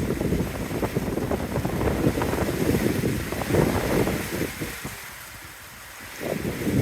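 Cyclone wind buffeting the microphone in gusts over a faint hiss of heavy rain. The gusts ease off about four and a half seconds in and pick up again near the end.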